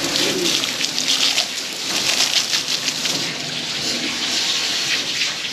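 Water spraying from a garden hose onto a metal cleaning table: a steady splashing hiss.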